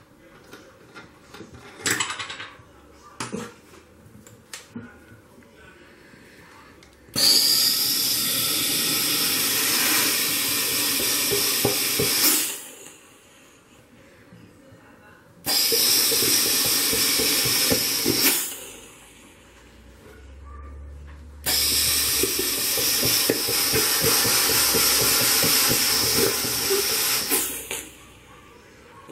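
Handheld steam cleaner releasing jets of steam in three long hisses of about five, three and six seconds. A few clicks and knocks come before the first, and a short low hum sounds between the second and third.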